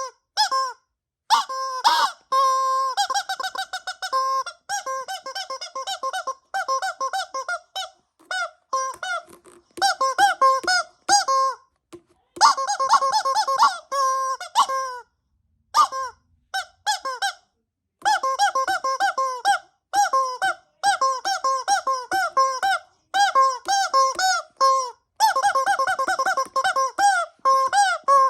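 Squeaky rubber fidget toys squeezed over and over: runs of short pitched squeaks, some bending up and down in pitch, with brief silent pauses between runs.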